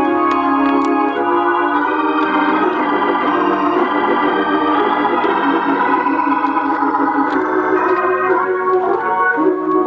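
Hammond organ played solo in a gospel style: full held chords with quick runs of notes over them, settling back onto a lower held chord near the end.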